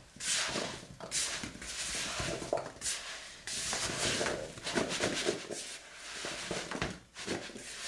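Chopped apple pieces tossed and stirred by hand in a plastic bowl to coat them in sugar, cinnamon and flour: an irregular run of rustling, shuffling scrapes.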